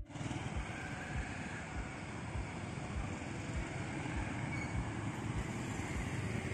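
Road traffic from passing motorcycles and an auto-rickshaw, with a steady low beat of background music under it, about one beat every 0.6 s.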